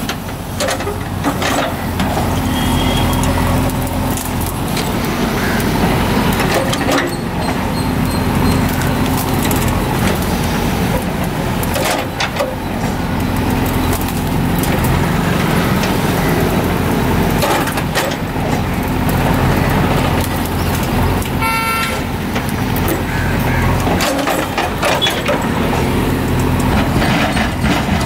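JCB 3DX ECO backhoe loader's diesel engine running under load as the backhoe bucket pushes over a large tree stump, the engine note swelling and easing with the hydraulic work. Occasional sharp knocks and cracks come from the bucket and the wood.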